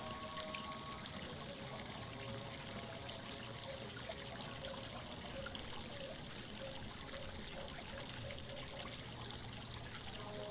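Water trickling and pouring steadily, with faint short tones rising now and then behind it.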